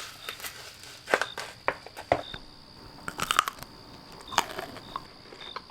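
Crisp crunches and cracks of a Dubai chocolate bar with its crunchy kataifi and pistachio filling, a handful of sharp crunches spread irregularly, with a dense cluster about three seconds in.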